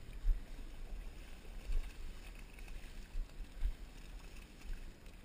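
Low, muffled rumble of wind on a GoPro's microphone, with a few dull bumps of handling noise.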